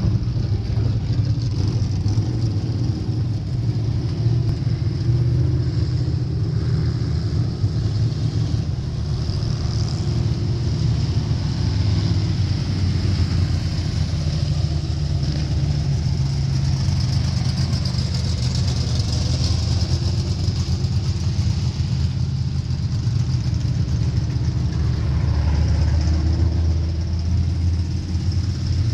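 Engines of a pack of vintage jalopy race cars running as they circle a dirt oval, a steady low engine sound with no sharp pass-by peaks.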